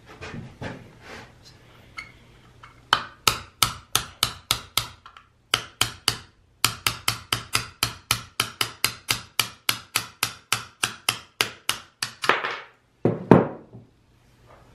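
A hammer tapping a punch to drive the trigger pin out of a Jon Cutter G5800 chainsaw's plastic rear handle. Quick sharp taps come about four a second, broken by two short pauses, and then two heavier knocks near the end.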